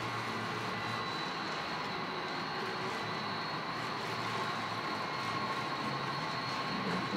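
HO-scale model diesel locomotives running past on the layout track: a steady whir of motors and wheels on the rails, with a faint steady high whine.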